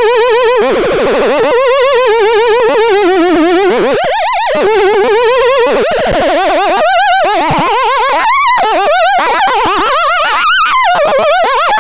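The Antisilvestron sounding a continuous wobbling tone with a rapid, even warble, its pitch wandering up and down and climbing higher near the end.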